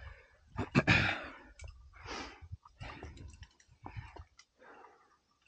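A rock climber breathing hard while climbing: a run of breaths about one a second, with scattered short clicks and scuffs.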